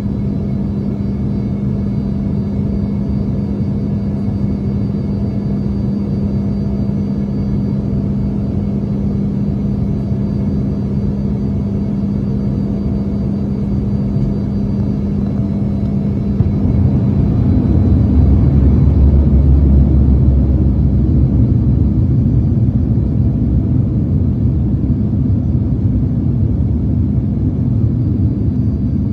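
Cabin noise inside an Embraer ERJ-135 regional jet on its descent: the steady rumble of its rear-mounted turbofans and the airflow, with a steady hum. About halfway through the hum fades and the low rumble grows louder and stays louder.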